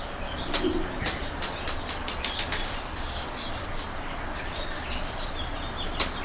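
Glass marbles clicking: a quick run of light clicks and clinks over the first few seconds, then a single sharp tap near the end as a marble is bounced off the floor.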